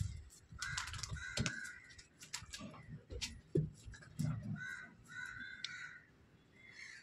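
Crows cawing, about half a dozen short harsh calls spread over several seconds, with scattered sharp clicks and a few dull knocks in between.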